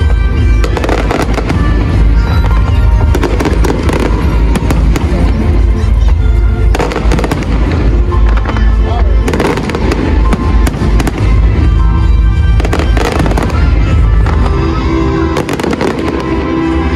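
Aerial fireworks shells bursting and crackling one after another, over loud music with a heavy bass.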